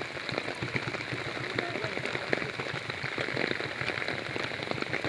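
Steady rain falling, with dense, irregular drop ticks close to the microphone.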